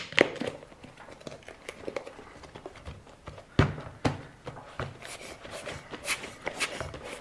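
Hands handling things on a work surface: a few light knocks, the sharpest about three and a half seconds in, then a run of quick clicks and rustles.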